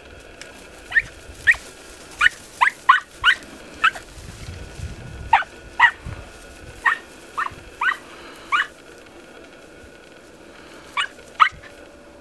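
Podenco Orito hounds yelping in short, high-pitched barks, about fifteen in irregular clusters with brief gaps between, as they work rabbits in scrub.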